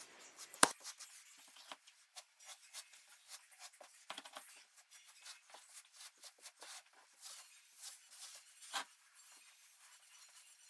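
Faint scraping and rubbing of grout being worked into the joints of a tile backsplash, many small scratchy strokes, with a sharp click about half a second in and another near the end.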